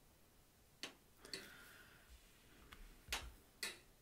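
Four faint sharp taps in two pairs, each pair about half a second apart: a hammer striking a chisel held to the hot steel bear's head to cut and flare the nostrils. A short hiss follows the second tap.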